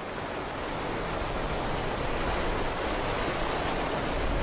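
Swollen river rushing over rapids: a steady, even rush of water that builds slightly in the first second, then holds.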